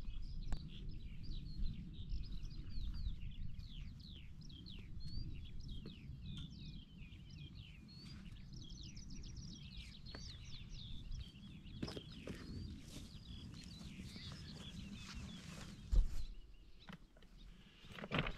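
Small songbirds singing, a dense run of quick short chirps and trills that thins out in the second half, over a low rumble. A single sharp thump near the end.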